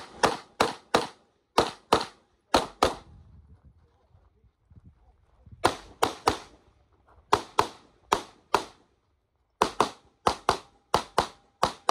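Pistol shots fired rapidly, mostly in quick pairs, some twenty in all: eight shots, a pause of about two and a half seconds, seven more, a one-second pause, then a fast string of about seven.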